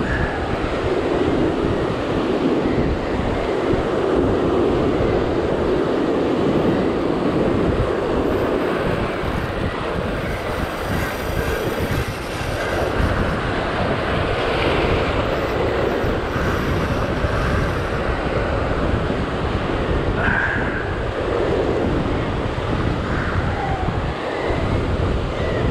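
Wind buffeting the microphone over the steady rush of surf breaking on a rocky shore. The noise stays even throughout.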